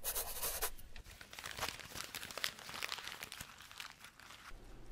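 Pen scratching on paper as a contract is signed, with paper rustling and crinkling. The scratching is thickest in the first second and thins out toward the end.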